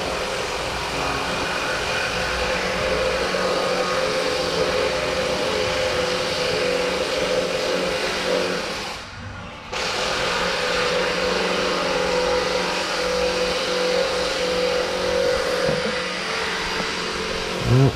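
Steady mechanical running noise with a continuous hum, cutting out briefly about nine seconds in.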